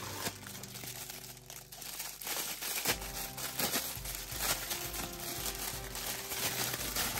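Thin plastic packaging crinkling as a clear plastic bag is handled and pulled open, in busy irregular crackles that grow denser after about two seconds, over background music.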